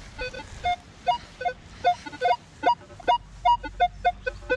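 Metal detector sounding its target tones: short beeps at a few different pitches, low and high, several a second in an irregular run as the coil is swept over a buried target.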